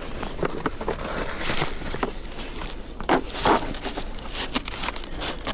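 Handling noises: scattered clicks and scrapes with rustling, the loudest scrape about three seconds in.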